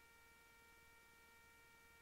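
Near silence: a faint steady electrical whine with a few evenly spaced overtones over light hiss, without change.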